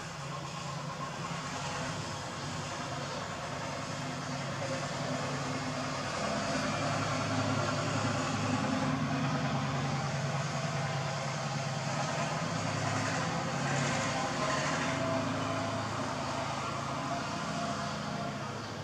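Steady engine-like hum with a broad rushing noise, growing louder in the middle and easing off near the end.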